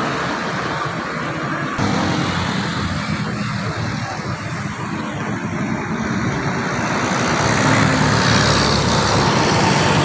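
Road traffic going by, engines and tyre noise, growing louder over the last few seconds as a large coach bus comes up and passes.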